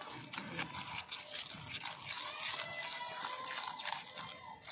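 Wet henna paste squelching and clicking as it is stirred and kneaded by hand in a bowl, with water being worked into it.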